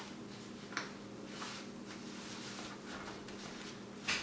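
Faint, irregular scratchy rustles of a cat clawing and rubbing against a door scratcher pad, over a steady low hum, with a louder scratch near the end.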